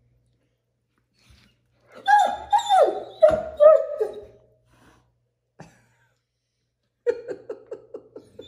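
Great Dane puppy whining in a quick string of four or five calls, each sliding down in pitch, about two seconds in. Near the end a person laughs in rapid short pulses.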